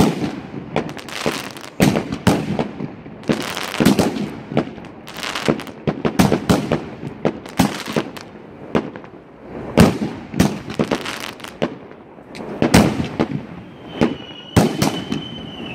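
Fireworks battery firing: a rapid, irregular series of bangs as shells burst overhead, with crackling between them. A steady high whistle starts near the end.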